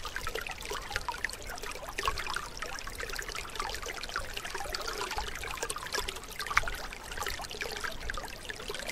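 Shallow canal water trickling and gurgling steadily through a narrow gap in a mud bank where a bamboo fish trap is set, with a brief louder splash about six and a half seconds in.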